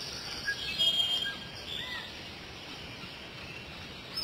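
Birds chirping and calling, short whistled notes loudest about a second in, over a steady outdoor hiss.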